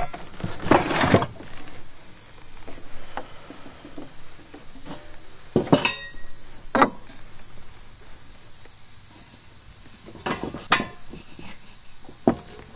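Handling noises at a wooden worktable: cloth rustling and a handful of short knocks, the sharpest about six to seven seconds in, over a faint steady high whine.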